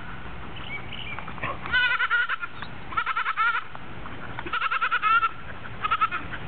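Goats bleating: four separate bleats, each with a wavering, quavering pitch.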